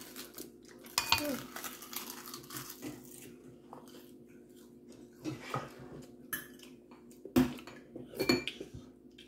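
Metal spoon clinking and scraping against a soup bowl several times, with sharp knocks about a second in and two more near the end.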